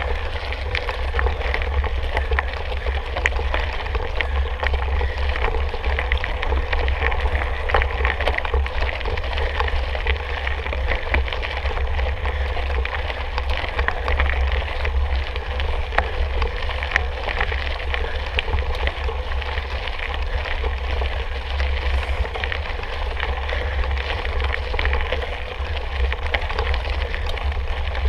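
Mountain bike being ridden: wind rumbling on the microphone over a steady crackling rattle of tyres and bike on a rough trail.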